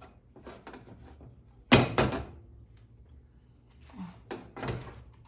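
Clunks and clicks of engine parts and tools being handled and set down on a workbench: two loud knocks close together about two seconds in, with lighter knocks before and near the end.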